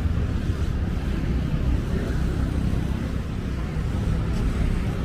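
Street traffic of motorcycles, cars and a bus running past as a steady low rumble, with wind buffeting the microphone.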